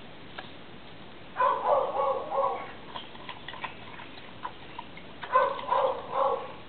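Dog barking in two quick bouts of three or four barks each, about four seconds apart.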